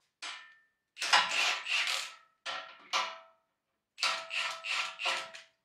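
Cordless impact wrench with a 19 mm socket tightening the bumper mounting bolts on a Jeep Wrangler TJ, hammering in four bursts: a short one, then three longer runs of one to one and a half seconds each, with pauses between.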